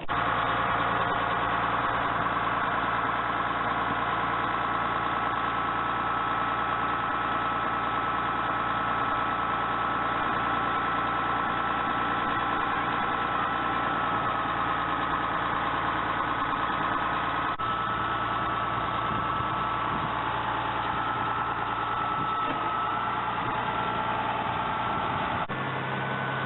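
Heavy bulldozer's diesel engine running steadily, with an even, unchanging drone; its low note shifts slightly near the end.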